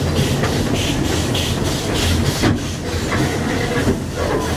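Puffing Billy narrow-gauge steam train running, heard from an open-sided carriage: a steady rumble of carriage wheels on the rails, with a regular hissing beat of about three puffs a second.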